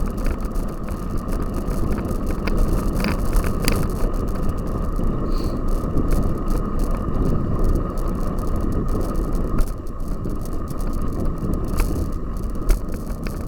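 Cyclocross bike ridden over rough ground: steady tyre and wind noise, with frequent rattling knocks from the bike.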